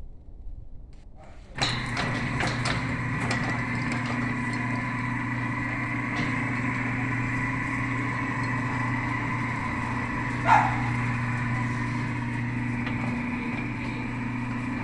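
A machine starts with a few clicks about a second and a half in, then runs with a steady, even hum. A dog barks once about ten seconds in.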